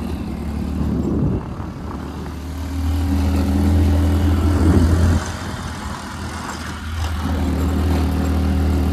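Vehicle engine pulling hard in first gear up a steep dirt climb, a steady low drone that swells and then drops off suddenly twice as the load and throttle change; the vehicle is struggling to make the grade.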